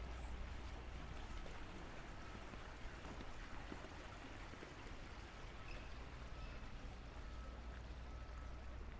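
Water from a sculpture fountain splashing and trickling steadily into a shallow pool, over a low steady rumble.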